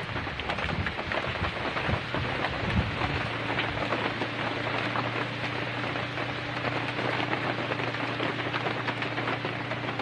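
Heavy rain falling: a dense, steady hiss and patter of drops. A steady low hum joins about three seconds in.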